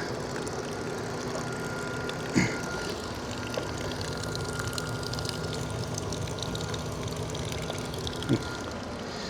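Steady mechanical hum holding a few fixed tones, with two brief short sounds, one about two and a half seconds in and one near the end.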